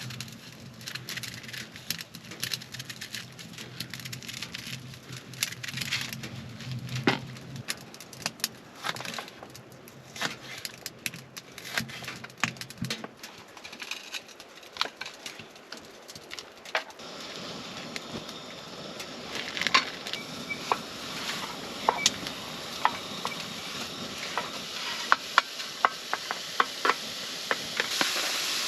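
Food sizzling and crackling in a frying pan, with many sharp pops; the sizzle grows louder about halfway through.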